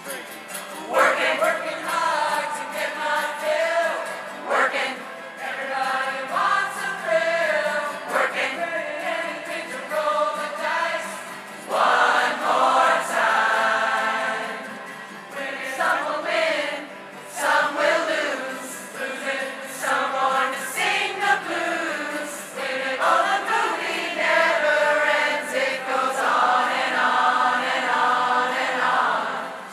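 A large drop-in crowd choir singing together, line after line, with short breaks between phrases.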